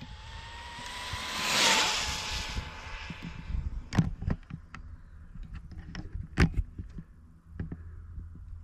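Electric RC car (Tamiya MF-01X chassis on a 2S battery) speeding past on a flat-out top-speed run: its motor whine rises, peaks and drops in pitch as it passes about a second and a half in. Several sharp knocks follow.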